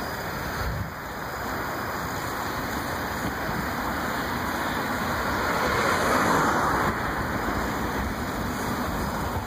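Wind rushing over a handheld phone's microphone while riding a bicycle: a steady noise that swells a little around the middle.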